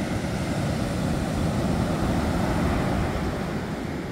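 Ocean surf breaking on a sand beach: a steady low rushing rumble that swells a little about two seconds in and eases near the end.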